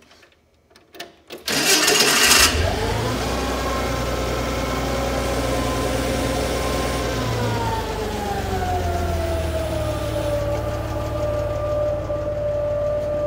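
Propane-fuelled engine of a Hyster H100XM forklift starting: a second of starter cranking about a second and a half in, then it catches and runs, its note settling lower a few seconds later into a steady idle.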